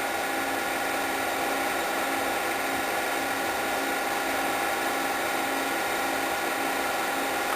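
8mm film projector running: a steady motor whir with several constant humming tones.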